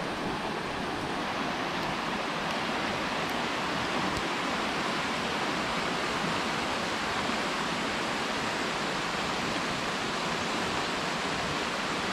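Steady, even rushing hiss of rain and running water.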